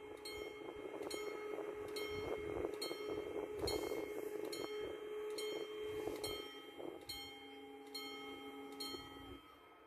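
Level-crossing warning bell ringing with evenly spaced strikes, about three every two seconds, each leaving a ringing tone, as the crossing closes for an approaching train. The ringing stops about nine seconds in, once the barriers are fully down.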